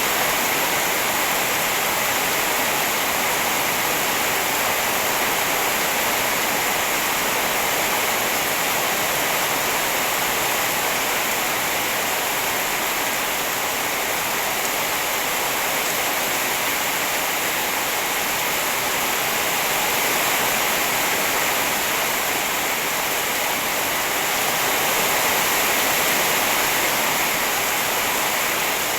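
Steady rain falling, an even hiss with no separate drops standing out and no thunder.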